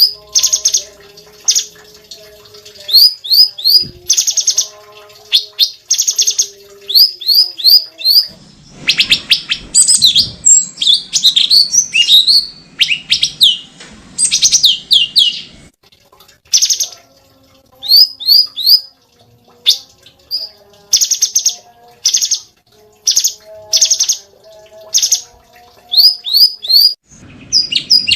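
A cucak cungkok singing nonstop: loud, high, quick rising whistles mostly in groups of three, traded with short harsh rasping bursts. Between about 8 and 15 seconds in, the song turns into a faster, denser run of notes.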